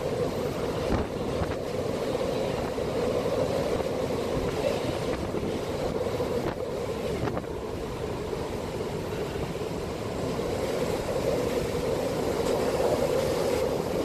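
Storm wind buffeting the microphone over the wash of choppy sea, with a steady droning hum underneath.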